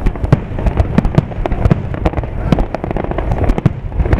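Aerial firework shells bursting in rapid, irregular succession, several sharp bangs a second over a continuous low rumble of booms.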